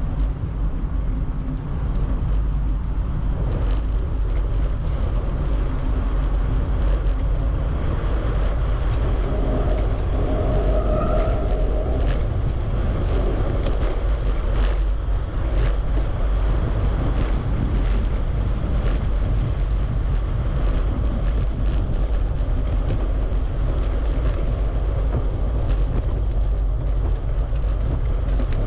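Wind rushing over the microphone of a camera on a moving bicycle, a steady low rumble mixed with tyre noise on the path, with light clicks now and then.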